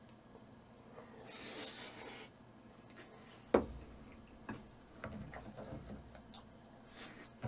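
Close-miked eating: a short airy slurp about a second and a half in, then chewing, with one sharp click about three and a half seconds in and a few lighter clicks after it.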